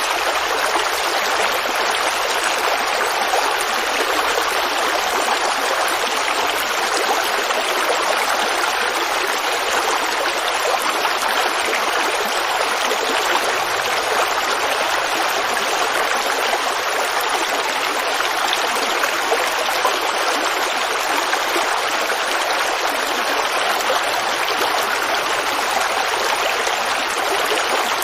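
Creek water running and babbling over stones in a steady, unbroken rush.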